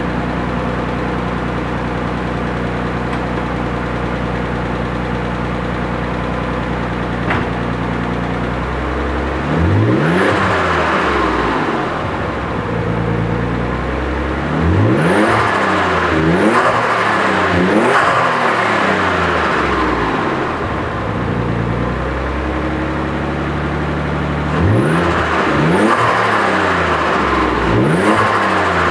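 1991 Nissan 300ZX Twin Turbo's 3.0-litre twin-turbo V6 idling steadily, then blipped up and back down about seven times, once alone and then in two groups of three, with a brief high chirp near the top of several blips. The owner wonders whether this noise is compressor surge, with the stock recirculation valves fitted.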